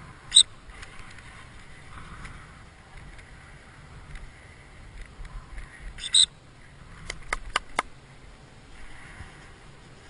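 Gun-dog training whistle giving signals to a retriever: one short, shrill blast, then about six seconds later a second, slightly longer blast. A quick run of four sharp clicks follows.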